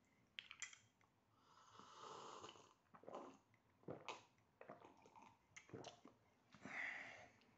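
Faint slurping sips of hot coffee from a mug, twice, with small clicks and taps of the spoon and mug between them.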